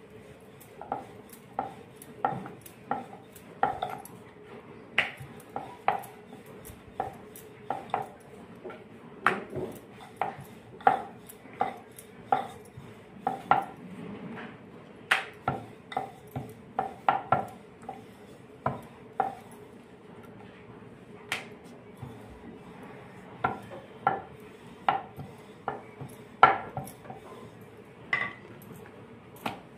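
Rolling pin working a sheet of dough on a round rolling board, making repeated irregular clacks and knocks, about one or two a second.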